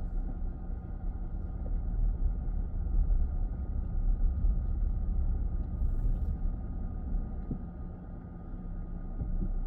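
Road noise heard inside a moving minivan: a steady low rumble of engine and tyres with a faint constant hum.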